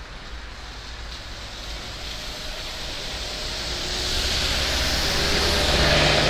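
Heuliez GX327 city bus with a Euro 4 diesel engine and Voith automatic gearbox driving past on a wet road. The engine and the hiss of tyres on wet asphalt grow steadily louder as it approaches and are loudest near the end as it goes by.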